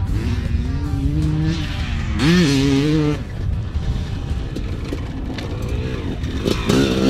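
Honda CR250 two-stroke motocross engine being ridden hard on the track. It revs up sharply about two seconds in, holds for about a second, drops back, then picks up again near the end.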